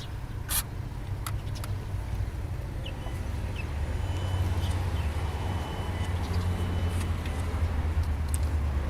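Audi A4 B6 1.9 TDI four-cylinder diesel engine idling with a steady low hum that gets a little louder about four seconds in. The mechanic holds a worn belt tensioner to be the most likely source of its noise.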